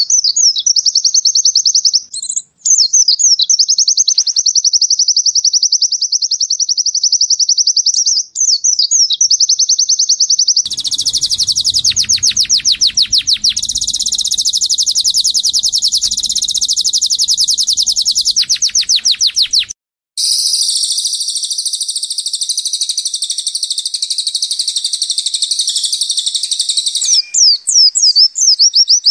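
Songbird song for bird training: a white-eye (pleci) repeating a very fast, high, even buzzing trill, the 'zipper' song. About ten seconds in it switches abruptly to a denser, higher, more complex song from another bird, cuts out briefly just before twenty seconds, and continues high and dense until the fast trill returns near the end.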